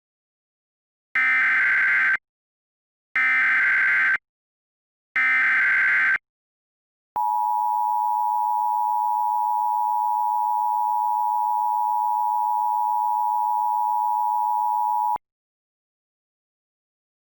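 Emergency Alert System SAME header: three one-second bursts of digital data tones, a second apart, followed by the EAS attention signal, a steady two-tone sound (853 and 960 Hz) held for about eight seconds and cut off sharply.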